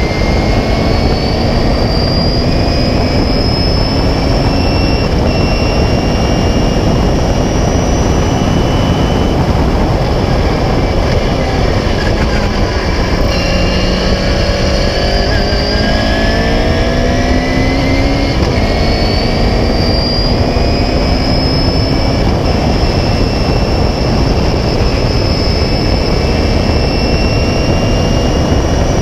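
Onboard sound of a 1976 Beagle Mk4 clubmans racing car's engine at racing speed, its pitch climbing again and again as it pulls through the revs, falling around 13 seconds in and then climbing once more. A steady rushing noise runs under it.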